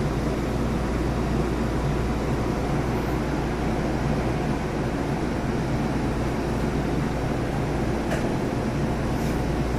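Steady low hum and rumble inside the passenger car of a Tobu 30000 series electric train.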